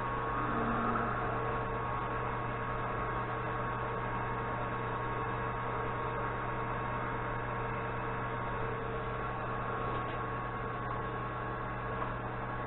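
Steady electrical hum with a few fixed tones over a low hiss, unchanging throughout.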